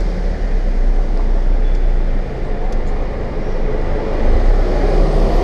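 Car engine running and road rumble heard from inside the cabin while driving: a steady low rumble that grows a little louder about four seconds in.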